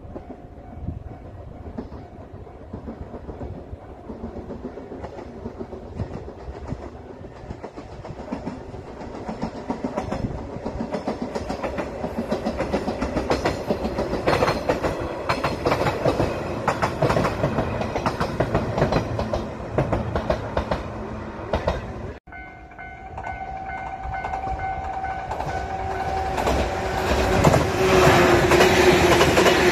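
A train passing a level crossing, its wheels clacking over the rail joints in a quick rhythm that grows louder as it nears. After an abrupt cut about two-thirds through, the crossing's warning bell rings steadily while the wheel clatter builds again and is loudest near the end.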